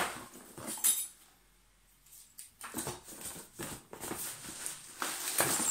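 Cardboard shipping box being handled and shaken, with knocks and rustling as small parts shift inside it. There is a sharp knock at the start and another about a second in, then a short quiet spell before the rummaging resumes.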